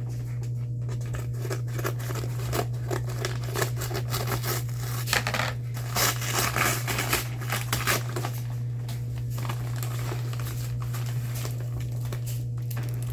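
Packaging being opened by hand: irregular crinkling, rustling and tearing, with snips like scissors cutting, over a steady low hum.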